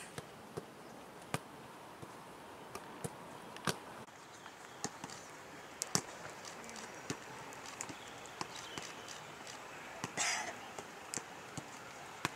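Irregular sharp thuds and taps from a football team's warm-up, over a steady background hiss, with a short, louder rasping burst about ten seconds in.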